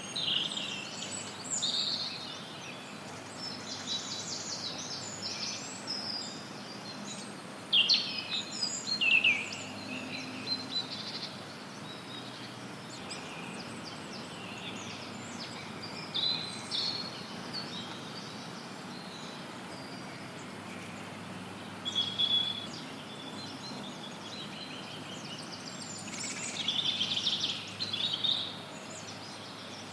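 Forest birds singing and chirping in scattered bursts over a steady, even hiss of white noise. The loudest phrases come about eight to nine seconds in, again around twenty-two seconds, and near the end.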